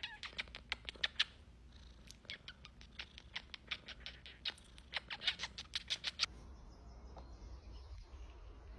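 Domestic cat purring steadily while being kissed, with a quick run of short lip-smacking kisses clicking over the purr. The kissing and purring stop about six seconds in, leaving a quieter low hum.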